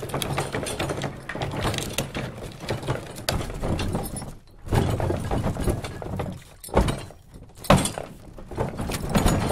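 Loaded wooden covered wagon rolling over a rough, rocky road, its wheels and body clattering and knocking irregularly, with a few hard jolts about two-thirds of the way through. There are no horse hooves.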